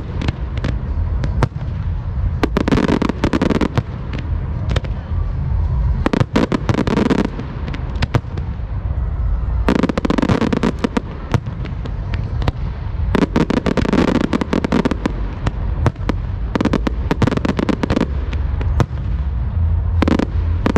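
Fireworks display: volleys of aerial shells bursting, each volley a dense run of sharp bangs and crackles, coming about every three to four seconds over a constant low rumble.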